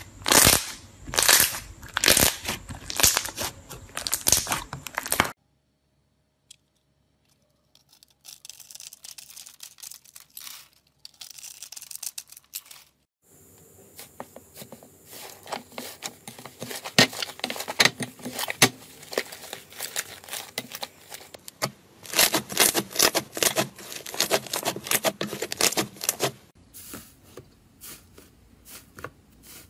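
Hands pressing and squeezing slime, making wet crackling and popping as trapped air bursts. The crackling stops after about five seconds, returns faintly, then comes back in full from about the middle onward as fingers press into an air-inflated slime dome.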